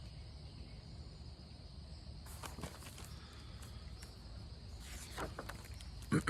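Low background hiss with a faint steady high-pitched tone, broken by soft rustles about two and a half seconds in and again about five seconds in.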